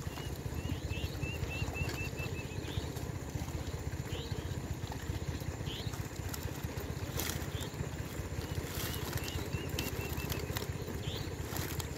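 Outdoor ambience with a steady low rumble, over which a bird gives a quick run of short chirps twice and several single rising calls.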